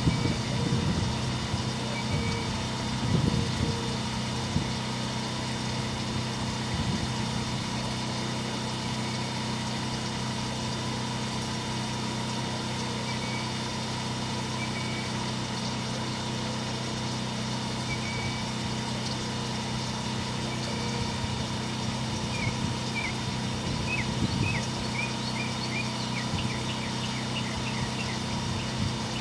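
Steady machine hum of a motor running without change, with a few short high bird chirps near the end.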